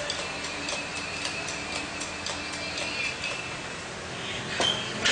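Steady rhythmic ticking, about three ticks a second, over a high steady tone, with a couple of louder knocks near the end.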